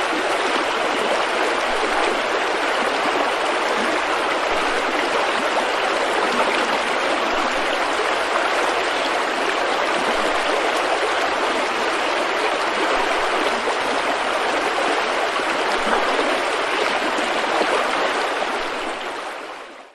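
River rapids: fast-running water rushing over rocks in a steady, full rush, fading out over the last couple of seconds.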